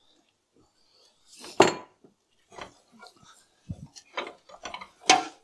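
Sliced radishes tipped from a glass bowl into a stainless steel stockpot, with a loud clatter about a second and a half in, then a wooden spoon stirring and knocking against the pot, with a sharp knock near the end.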